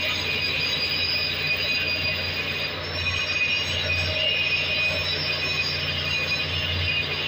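Handheld angle grinder grinding steadily on the metal of a cracked main-engine exhaust valve housing, with a high metallic whine that holds without a break.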